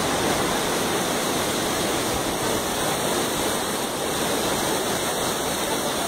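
Steady rush of a tall waterfall pouring into a river, with the current rippling over rocks below it.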